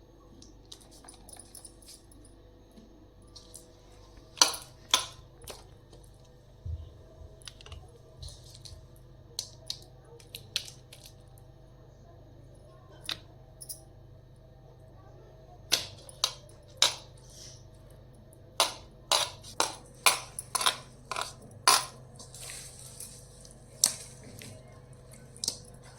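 Irregular sharp clinks and knocks of kitchen utensils and dishes being handled, sparse at first, then a quick run of them in the second half.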